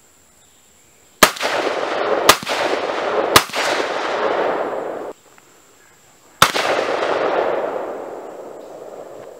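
AR-15 rifle in 5.56/.223 firing: three shots about a second apart, then a fourth after a pause, each followed by a long echo. The echo of the third cuts off abruptly.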